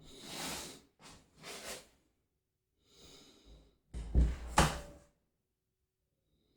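Handling noises from door hardware being worked: a few brushing and scraping sounds, then two sharp clicks or knocks close together a little after the middle.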